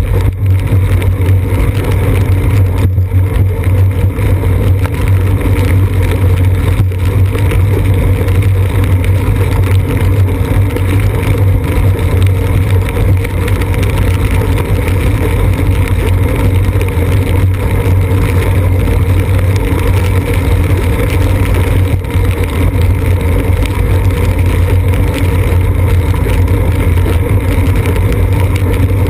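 Steady rumble and hiss of a bicycle riding along a wet road, picked up by a seat-post-mounted GoPro in its housing: tyre noise on the wet surface, road vibration and wind on the camera, with no break.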